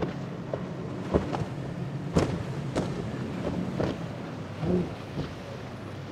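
Four Mercury Racing 400 outboards on an MTI V-42 running at speed with a steady low drone, broken by several sharp slaps and splashes as the hull hits the waves.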